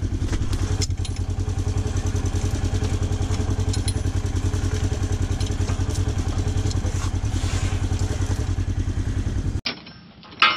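Polaris Ranger UTV engine idling steadily, heard up close at the rear wheel, with a fast even pulse. It cuts off about nine and a half seconds in, and a single sharp clank follows near the end.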